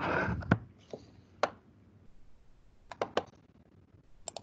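Scattered sharp clicks of a computer mouse, about six in all with two quick pairs in the second half, after a short rustling noise at the very start.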